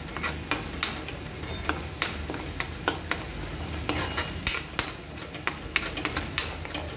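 Steel spoon stirring and scraping thick masala gravy in a steel kadhai, with repeated sharp clicks where the spoon knocks the pan's sides. A low sizzle comes from the gravy cooking over the gas flame.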